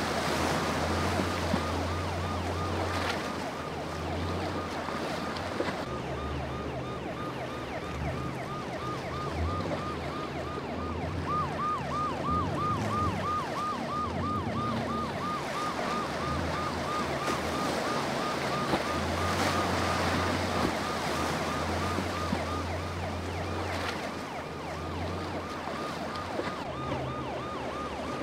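Emergency boat's siren yelping in a fast, steady up-and-down cycle, about four times a second, over the low drone of outboard engines, wind and churning water.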